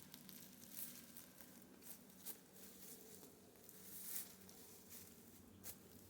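Near silence broken by a few faint, scattered clicks and taps.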